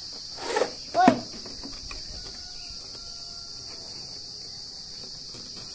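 Crickets chirring in a steady high drone. Two short, loud voice-like calls cut in about half a second and a second in.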